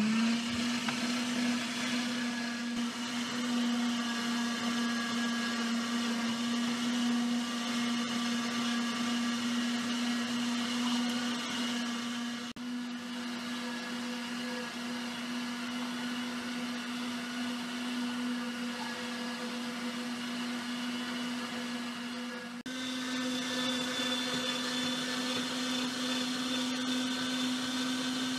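Electric meat grinder switched on and running steadily as it minces figs for jam, a motor hum that rises in pitch as it starts. It dips briefly twice, after which the hum sits a little higher.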